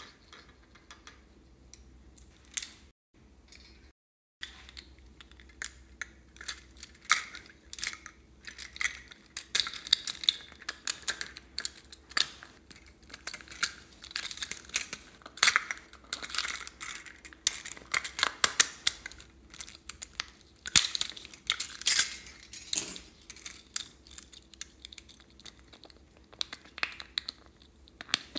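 Hands handling and taking apart a plastic emoji spring bobblehead toy: a dense run of small plastic clicks, rattles and crinkles with the jangle of its coiled spring. It starts sparse with a few single clicks, then gets busy from several seconds in and thins out again near the end.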